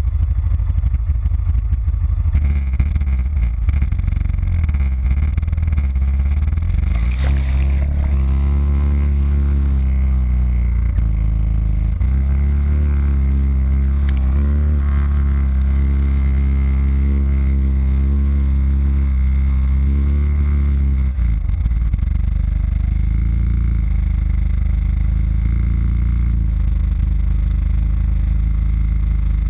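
ATV engine running close to a bumper-mounted camera: the revs climb about seven seconds in, hold steady, then drop back about 21 seconds in.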